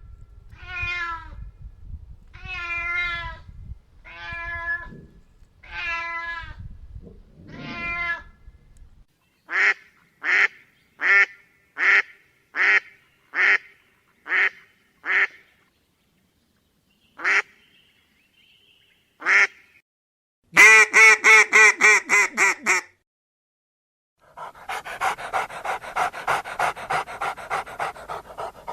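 A succession of different animals calling in turn: a call repeated about once a second, then a string of about eight short, evenly spaced calls, two single calls, a fast loud run of calls, and near the end a rapid, rhythmic sound.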